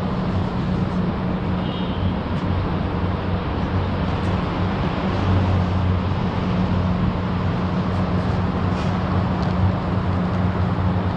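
Steady city street background: traffic noise with a constant low hum and no sharp events standing out.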